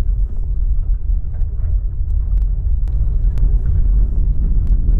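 Deep, loud earthquake-shaking rumble with scattered sharp cracks and rattles over it.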